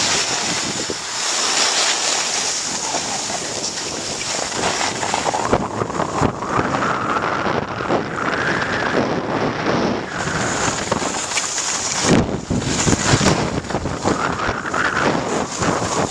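Wind buffeting the microphone of a camera carried by a skier on a fast downhill run, mixed with skis hissing and scraping over hard-packed groomed snow. A sharp knock comes about twelve seconds in.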